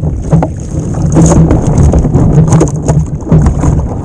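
Wind buffeting the microphone in a low, loud rumble, with scattered knocks and clicks of handling on the kayak.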